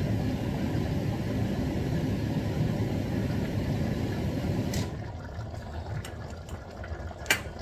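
Kitchen range hood extractor fan running with a steady low rumble, which drops away sharply about five seconds in as the hood is switched off. After that a quieter background with light ticks, and a sharp click near the end.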